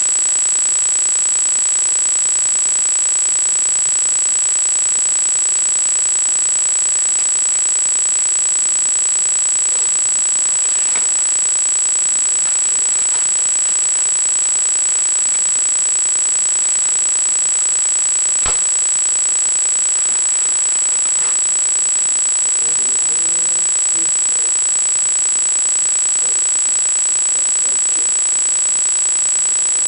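A constant, very high-pitched electronic whine over a steady hiss, with one sharp click about eighteen seconds in.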